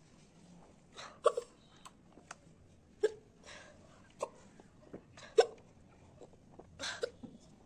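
A woman hiccuping over and over: several sharp, short hiccups one to two seconds apart. The hiccups were brought on by eating raw green chillies.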